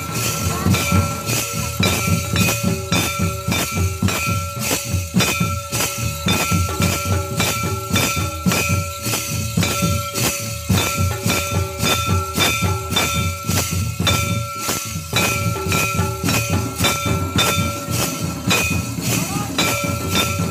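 Santali barrel drums and a kettledrum played in a fast, steady beat without pause, with a steady high tone held over the drumming.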